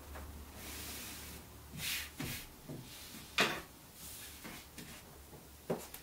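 A few small knocks and rubbing sounds of objects being handled and set down on a tabletop, the sharpest about three and a half seconds in.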